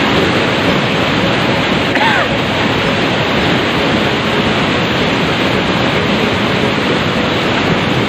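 Rushing white water of a rocky river cascade close by: a loud, steady roar of water pouring over rock into a pool. About two seconds in there is one short, faint call.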